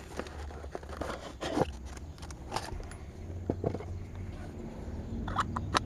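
Scattered handling noises: scrapes, rustles and short clicks as metal quick-release parts are taken from a cardboard box, with a few sharper clicks near the end.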